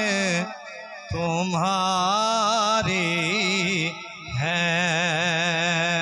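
A man singing a naat unaccompanied, drawing out long wavering held notes of a melismatic phrase. He breaks off briefly twice, about half a second in and about four seconds in.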